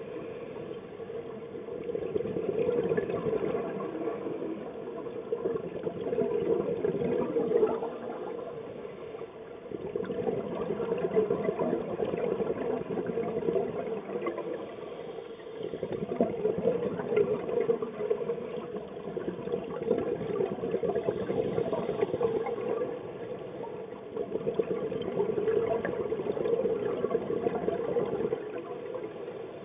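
A scuba diver's exhaled bubbles from the regulator, heard underwater: long stretches of bubbling and gurgling broken by short lulls at each in-breath, repeating every several seconds.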